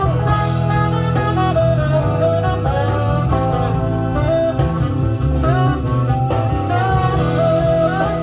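Recorded band music with guitar and a melodic lead line over a steady bass, played back during a sound check of a recapped Sony TC-KA7ES cassette deck.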